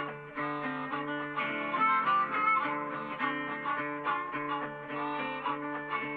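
Background music led by plucked guitar, with notes changing steadily.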